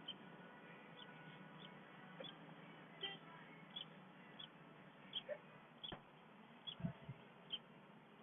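Near silence, with faint short chirps or ticks repeating about every second and a soft low thump about seven seconds in.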